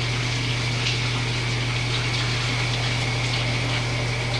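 Shower running steadily, water spraying with an even hiss, over a steady low hum.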